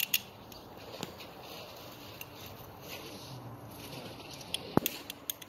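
A few short, sharp clicks and light handling noise from a PVC pipe cutter being handled and set against a PVC pipe. The loudest click comes near the end.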